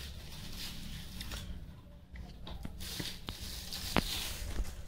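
Cardboard packaging being opened and the tool kit's case slid out of its box: rustling and scraping of card with several light clicks, one sharp click about four seconds in.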